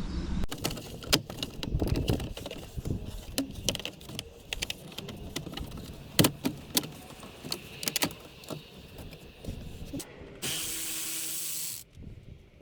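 Hand tools and plastic interior trim being worked on inside a car during dashboard and console removal: irregular clicks, knocks and rattles, then a steady hiss lasting about a second and a half near the end.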